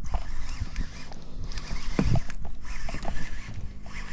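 Sweatshirt sleeve rubbing and brushing against a chest-mounted camera's microphone as the angler's arm swings with the rod, with a louder low bump about two seconds in.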